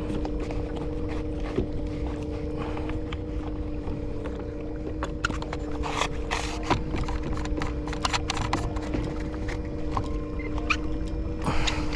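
Water lapping at a kayak with wind on the microphone, over a steady two-note hum, and scattered clicks and knocks of fishing gear being handled while a fish is played.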